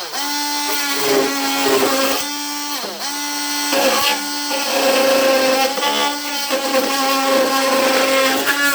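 Ryobi brushed oscillating multi-tool running and cutting into wood trim, a steady high buzz whose pitch sags briefly several times, around two, three and four seconds in, as the blade is loaded, then recovers.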